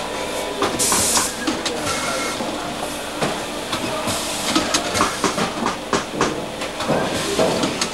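Automatic veneer feeding machine running: a steady hiss with irregular clicks and knocks throughout.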